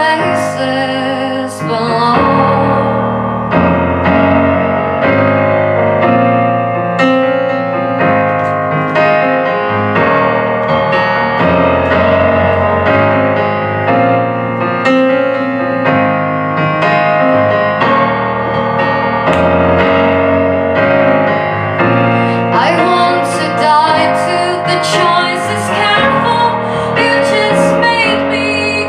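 Live band playing an instrumental passage of a song, carried by sustained piano or keyboard chords, with sharper cymbal-like strokes coming in near the end.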